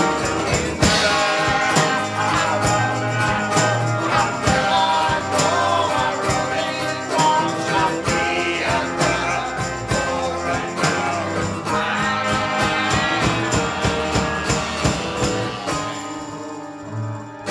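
A man singing a ballad with acoustic guitar accompaniment; the music thins out and gets quieter near the end.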